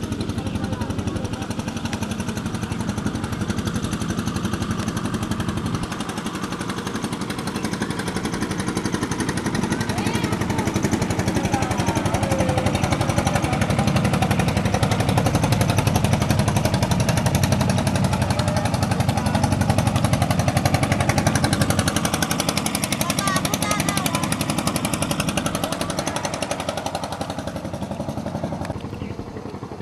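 A small engine running steadily with a fast, even rattle.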